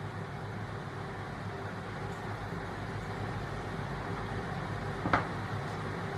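Steady low machine hum, with one sharp click about five seconds in.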